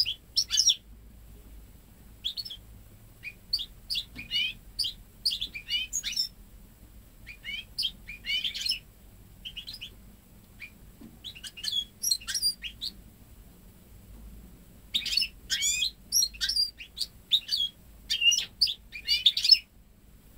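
A 10-month-old goldfinch × canary hybrid singing: phrases of quick, twittering goldfinch-style notes, each lasting from under a second to several seconds, broken by short pauses. The song is made up entirely of goldfinch phrases, as the bird has never heard a male canary.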